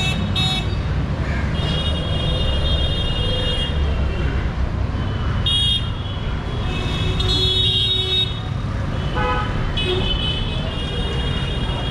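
Busy city street traffic: a steady rumble of passing engines, with vehicle horns honking over it again and again, some as short toots and some held for a second or two.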